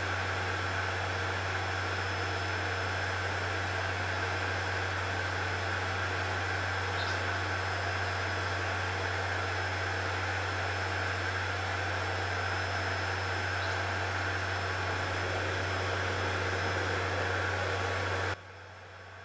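Power centrifuge running at speed, a steady low hum with an even whirring hiss, as it spins crude sunflower oil clean. Near the end the sound drops sharply to a much quieter level.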